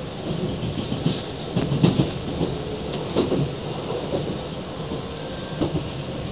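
Train noise: a steady rumble with irregular clanks and knocks.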